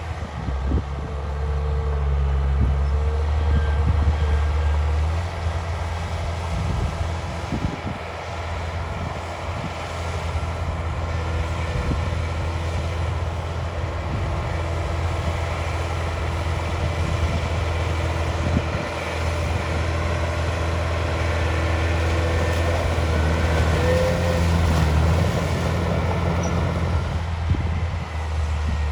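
Heavy diesel earth-moving machinery running steadily, a deep engine drone with a thin whine above it.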